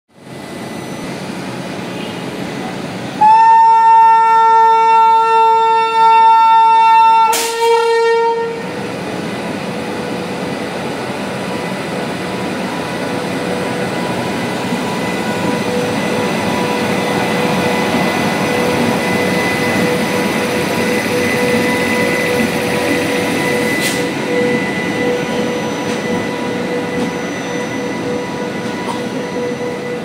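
WAP7 electric locomotive sounding its horn: one long blast of about four seconds, then a short second blast. The locomotive and its coaches then roll past steadily, pulling out of the station, with a faint steady hum over the running noise.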